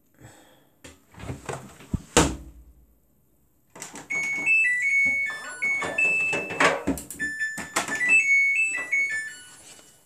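Samsung WF80F5E0W4W washing machine's electronic beeper playing its melody, a tune of high beeping notes stepping up and down for about five seconds. Before it come a few handling knocks and a sharp click about two seconds in.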